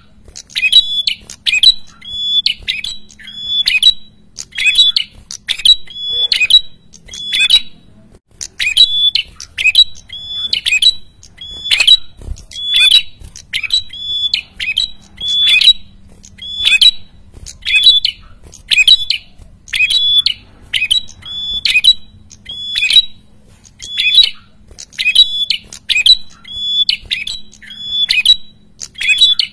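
A caged prenjak kepala merah (red-headed prenjak) calling over and over in full 'gacor' form: short, harsh, noisy calls about every second, with a brief pause about eight seconds in.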